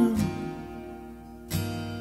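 Acoustic guitar strummed, a chord ringing and slowly fading, then struck again about one and a half seconds in.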